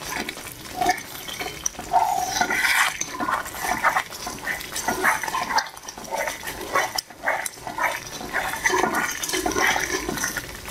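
Wooden spatula stirring and scraping a thick, wet mixture of gram flour and sugar syrup around a non-stick pan, in quick, uneven strokes. The mixture is being cooked down over the gas so that the syrup thickens and the sweet sets.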